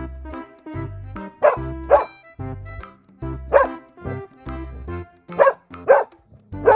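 Background music with a steady bass line and a pair of short bark-like sounds that repeat in time with the beat, about every two seconds.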